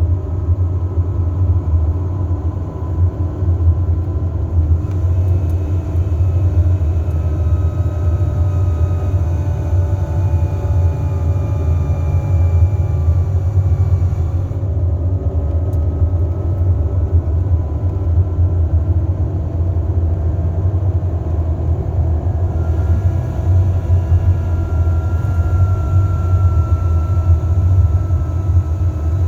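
Mercedes-Benz Travego 15 SHD coach running downhill with its retarder braking: a steady low engine and drivetrain drone, with high whines that come and go and slowly fall in pitch as the coach is held back.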